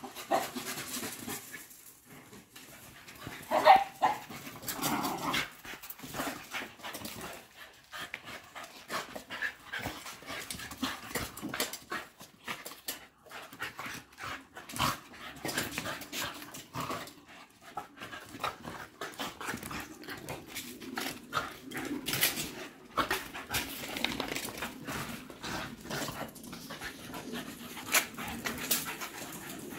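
Two Patterdale terriers panting hard as they chase each other, their claws clicking and scrabbling on stone paving slabs. There is a short loud bark about four seconds in.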